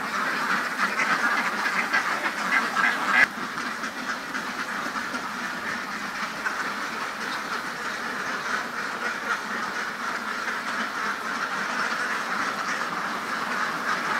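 A large flock of domestic laying ducks quacking all at once, many overlapping calls running together into a continuous din. The din drops abruptly about three seconds in and then carries on at a slightly lower level.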